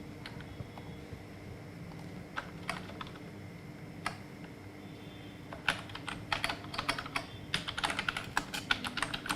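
Typing on a computer keyboard: a few scattered key presses, then fast, continuous typing from about halfway through, over a faint steady hum.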